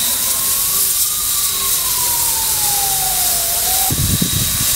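Steady steam hiss from a standing Ol49 class steam locomotive. A thin tone rises a little and then slowly falls over about three seconds before stopping, and a few low thumps follow near the end.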